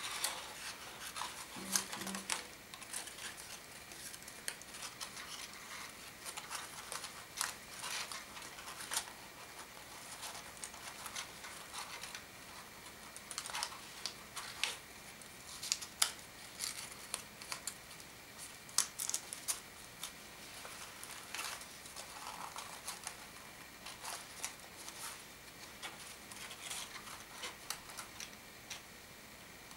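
Square origami paper units crinkling and rustling in the hands as they are slotted together into a modular kusudama: irregular light crackles and ticks.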